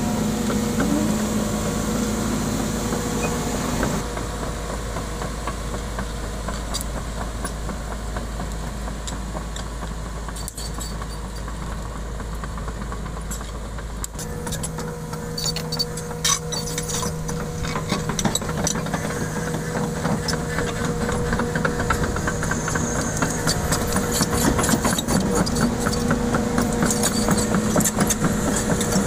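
Sumitomo SH210 hydraulic excavator's diesel engine running steadily, with scattered short clanks and rattles in the second half. The engine note changes abruptly about four and again about fourteen seconds in.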